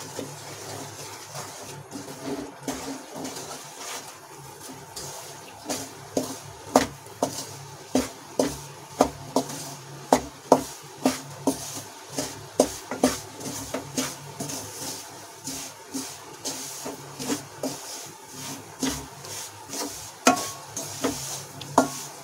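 Wooden spatula scraping and knocking against the side of an aluminium kadhai while stirring wheat flour roasting in ghee, about two knocks a second, louder from about six seconds in. A steady low hum runs underneath.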